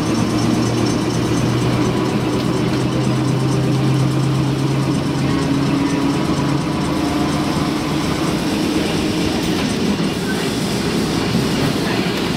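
Historic streetcar running along the track, heard from inside the wooden passenger car: steady wheel-and-rail rumble and rattle, with a low hum that fades out about halfway through.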